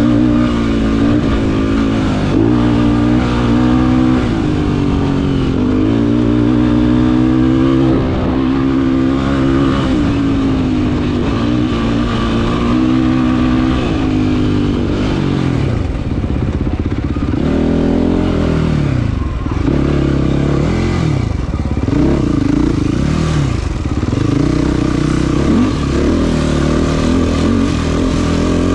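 Race quad's engine being ridden hard over rough desert ground, its pitch wavering with the throttle. From about halfway the revs climb and drop again and again in quick succession as the rider works the throttle and gears over the chop.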